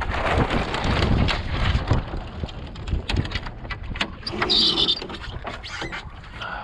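Small homemade wooden sailboat under sail in a gusty breeze: wind buffeting the microphone and water rushing along the hull, with frequent clicks and knocks from the boat's rigging and fittings. A short, higher-pitched squeak comes about four and a half seconds in.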